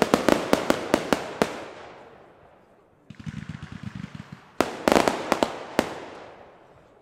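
Fireworks display: a quick volley of sharp bangs from bursting aerial shells, echoing and fading away, then a second volley about four and a half seconds in that again echoes out.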